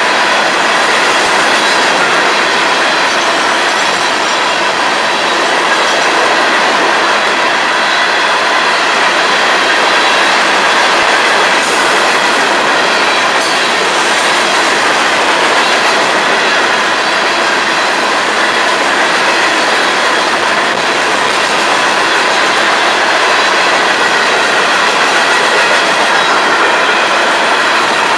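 Freight train of steel hopper cars rolling past close by: steel wheels on rail make a steady, loud, unbroken running noise.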